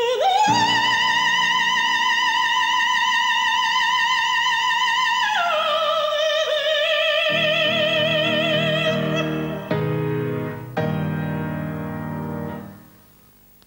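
Operatic female voice singing with piano accompaniment: a long high note held with vibrato, then a step down to a lower note, also held. Piano chords close the phrase and fade out near the end.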